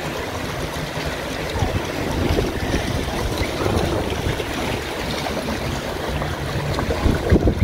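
Small lake waves washing and splashing in the shallows at the shoreline, a steady rush of water, with wind rumbling on the microphone.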